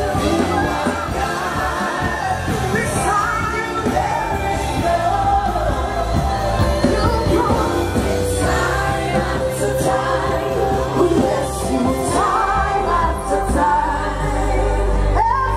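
Live gospel music: a woman sings lead into a microphone with a backing vocalist, over a band with a strong, steady bass.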